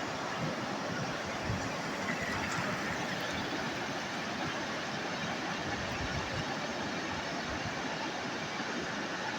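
Sea waves washing on the shore, a steady rushing noise with low rumbles underneath.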